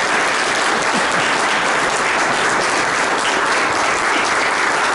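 An audience applauding: many people clapping steadily.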